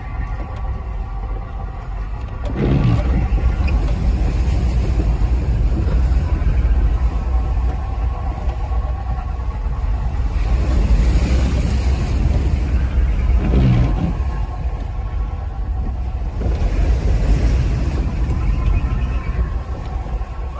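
A car driving through deep water, heard from inside the cabin: a steady low engine and road rumble, with surges of spray hissing against the body about ten and sixteen seconds in.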